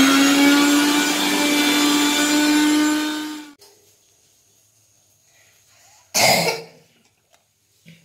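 Sujata Dynamix mixer grinder running at full speed with a steady high whine, grinding fresh leaves and a little water into a paste. It is switched off about three and a half seconds in and cuts out quickly. A brief loud burst follows about six seconds in.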